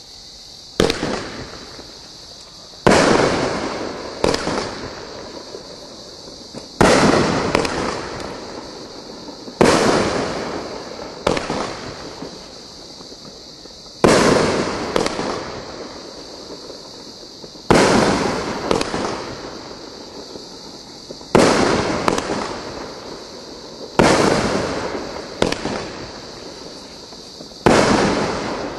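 Consumer fireworks cake firing aerial shots one after another: about a dozen loud bangs two to four seconds apart, some in quick pairs, each trailing off in a long rolling echo.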